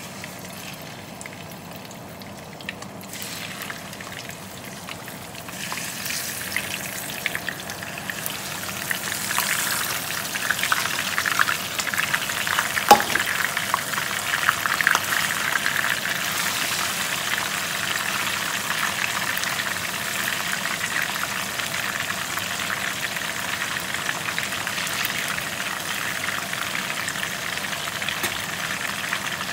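Walleye pieces frying in hot oil in a nonstick pan: a steady sizzle with crackling, building over the first several seconds as the fish goes in and busiest around the middle, with one sharp pop about halfway through.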